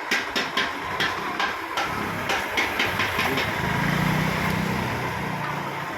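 A quick, irregular series of sharp knocks, about a dozen in the first three and a half seconds, overlapped and followed by a low steady hum.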